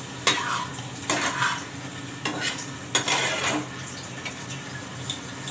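Steel spatula scraping and knocking in a frying pan of fish curry as fried fish pieces are stirred in: four scrapes in the first three and a half seconds, then a few light taps.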